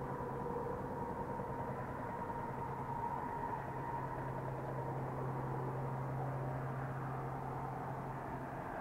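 Distant road traffic: a steady rumble with a low engine hum, and a faint tone that slowly falls in pitch as a vehicle passes.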